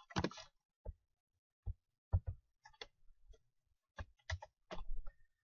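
About a dozen separate clicks from a computer mouse and keyboard at irregular intervals, as a block of text is cut and pasted in a document.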